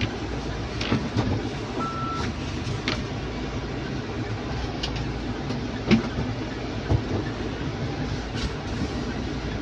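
Mahindra Thar driving off-road over rough ground: a steady low rumble from engine and tyres, broken by several knocks and clunks, the loudest about six seconds in. A short beep sounds about two seconds in.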